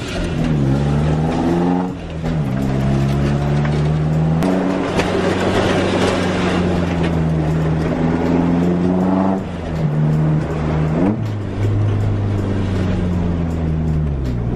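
Nissan 240SX engine heard from inside the cabin while driving, revving up and dropping back sharply with several gear changes, then holding a steady note for a stretch.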